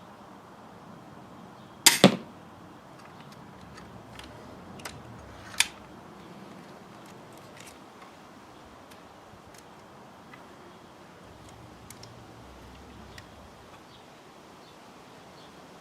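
An 80 lb Armex Tomcat pistol crossbow shot about two seconds in: a sharp double crack, the string's release and then, a fifth of a second later, the bolt striking. A smaller sharp click follows a few seconds later.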